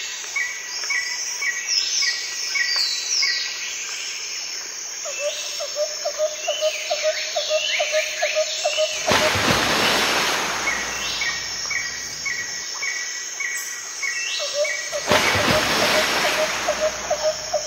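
Several birds chirping and calling over each other, with short chirps repeated a few times a second and quick falling whistles. Two swells of rushing hiss rise and fade, about nine and fifteen seconds in.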